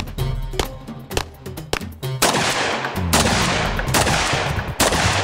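Gunshots from handgun and shotgun over loud music with a beat; the music grows dense and loud about two seconds in, with several sharp shots cutting through it.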